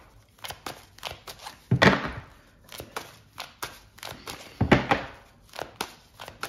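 Tarot deck shuffled by hand: a steady run of small card clicks and slaps, with two louder rushes of cards about three seconds apart.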